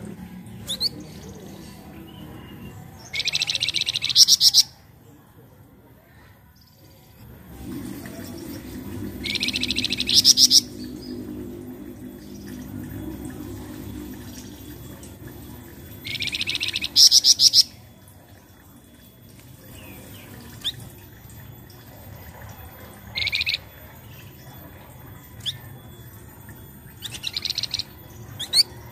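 Brown-chested jungle flycatcher calling: a loud, fast, dry rattling trill repeated about every six seconds, each lasting a second or two, with short single rising chirps in between.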